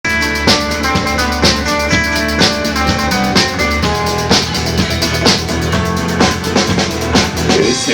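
Rock band playing an instrumental intro: a drum kit keeps a steady beat with a strong hit about once a second under held chords.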